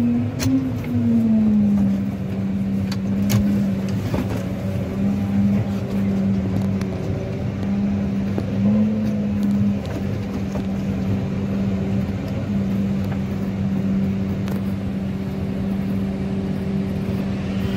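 Case IH Maxxum tractor engine heard from inside the cab, running steadily under way. Its pitch drops about a second in and rises briefly around eight seconds. A few sharp knocks and rattles come from the cab early on as it drives.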